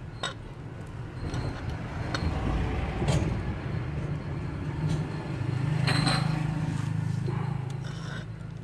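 Imperial 120–140 bar electric high-pressure washer's motor and pump running with a steady hum that swells and then eases off, with three sharp clicks along the way. The motor keeps running and does not cut out when the spray-gun trigger is released: the check valve fails to push the rod that opens the limit switch.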